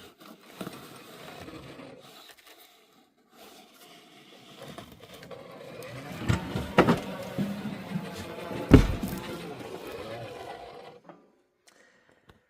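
HO-scale 0-10-0 model steam locomotive running on the layout track, its small motor and gears whirring and its wheels clattering on the rails. There are two sharp knocks partway through, and it stops about eleven seconds in; the owner blames the faltering on dirty track, not the locomotive.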